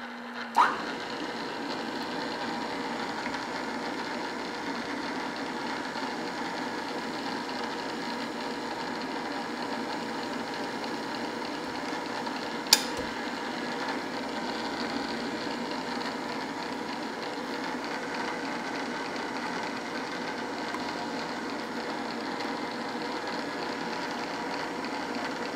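DoAll drill press starting up, then running steadily with a whine as it drills a 3/4-inch cold-rolled steel bar on its slowest power down feed. A single sharp click about halfway through.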